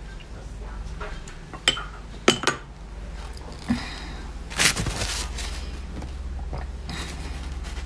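Frozen coloured ice crunched between the teeth: a few sharp cracks as a stick of ice is bitten, then a louder crunch about halfway through, followed by fainter chewing crackles.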